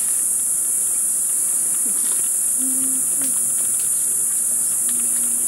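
Steady, high-pitched chorus of insects, with a few faint, short, low tones near the middle and near the end.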